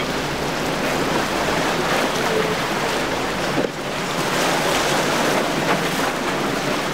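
A Midnight Express center-console boat with triple Mercury outboards running at speed through chop, its engines mixed with the steady rush of spray and surf. Wind buffets the microphone.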